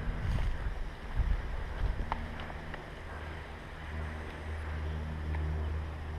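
Low, gusty rumble of wind buffeting the microphone, with a few faint ticks about two seconds in.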